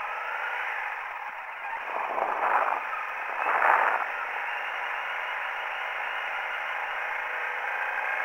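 Honda CRF250L's single-cylinder four-stroke engine running under way, heard thin and tinny through a small camera's microphone with wind noise. Two louder rushes of noise come about two and three and a half seconds in.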